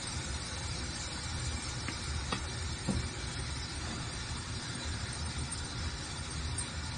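Steady low hum and hiss of workshop background noise, with a few faint clicks a couple of seconds in while wood glue is being run along a wooden frame.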